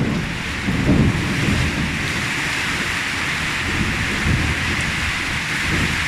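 Rain falling steadily on plants, an even hiss throughout, with low rumbles coming and going, strongest about a second in.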